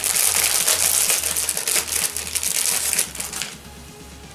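Clear plastic packaging crinkling as it is pulled open by hand, stopping about three seconds in.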